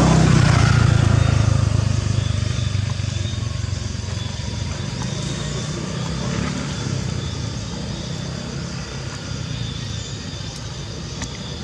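A motor engine running with a steady low hum, loudest at the start and slowly fading away.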